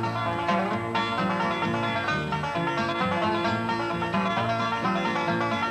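Fast bluegrass banjo music: quick plucked notes in a steady, busy run.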